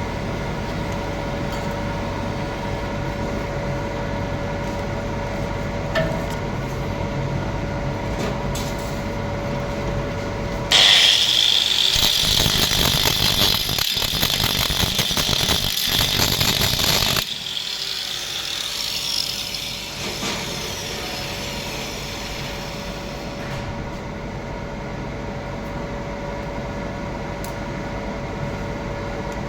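A steady electrical hum with a constant tone throughout. About eleven seconds in, a welding arc strikes on a pipe root pass and crackles and hisses loudly for about six seconds, with a couple of brief breaks, before cutting off abruptly.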